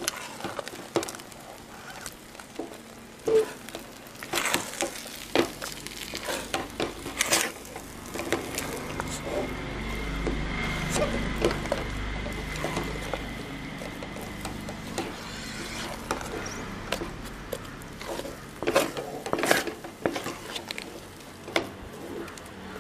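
A hand mixing and kneading damp rice-flour dough in a stainless steel bowl: soft squishing with irregular taps and scrapes of fingers against the metal. A low steady rumble with a faint high tone swells in the background for several seconds in the middle.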